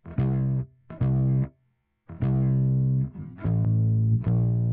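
Bass loop from Logic Pro playing back through Logic's Compressor plug-in, which is being switched between compressor models to compare them: two short low notes, a gap of about half a second, then longer held notes.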